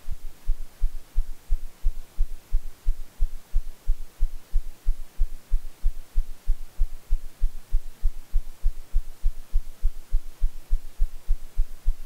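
A low, even thudding pulse, about three and a half beats a second, with nothing higher-pitched above it.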